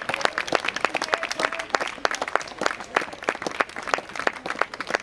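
A small group of spectators applauding, with individual sharp claps standing out.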